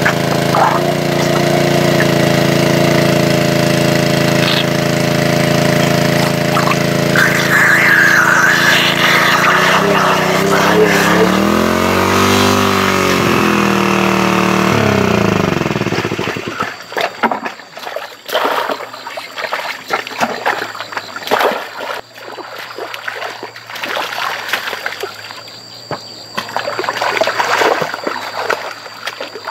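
Engine-driven water pump running steadily, its engine speed wavering up and down before it winds down and cuts out about sixteen seconds in. After that, irregular splashing and trickling water.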